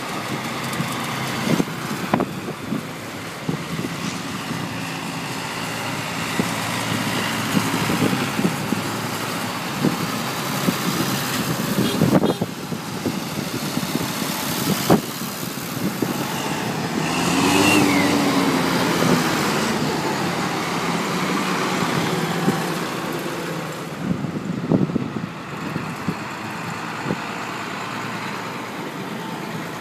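Farm tractors' diesel engines running as the tractors drive past one after another. About halfway through, one engine rises and falls in pitch as it revs.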